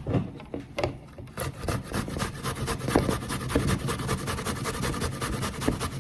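Zucchini being shredded: a rapid, continuous rasping scrape, starting about a second and a half in.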